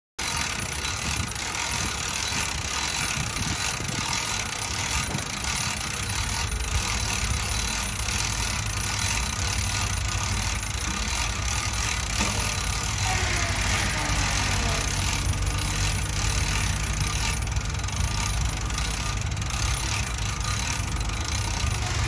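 A small engine idling steadily, its low hum settling in after a few seconds. Wind buffets the microphone at the start.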